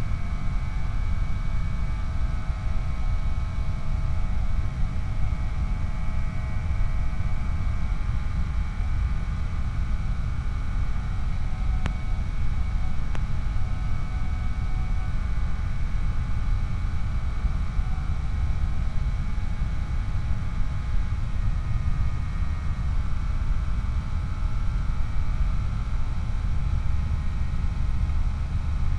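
Skyhunter FPV plane's electric pusher motor and propeller running steadily under cruise power, several steady tones over a heavy low rumble of wind on the onboard microphone.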